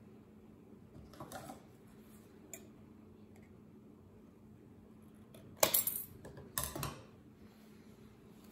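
Lithium pouch cells being handled over a stack of cells: a few faint clicks, then two louder metallic clacks about two-thirds of the way through.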